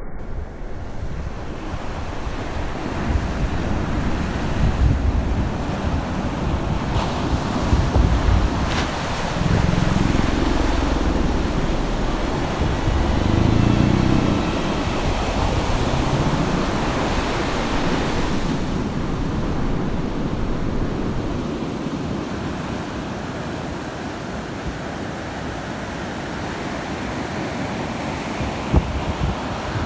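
Ocean surf washing in and out with wind buffeting the microphone, a steady rushing noise with a heavy low rumble. A low wavering sound rises and falls for a few seconds around the middle.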